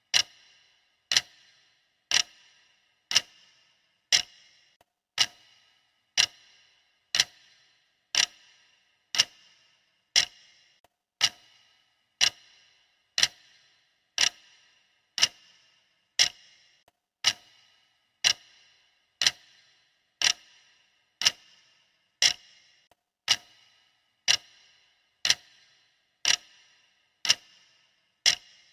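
Clock ticking steadily about once a second, each tick a sharp click with a brief ring after it.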